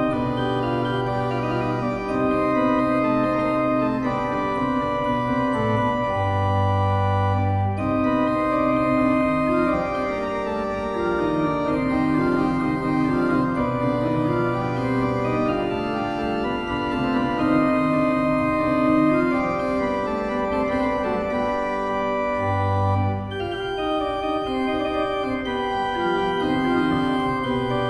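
Small chamber organ with drawknob stops, played on its manual: slow, held chords that change every second or two, with deep bass notes coming in now and then.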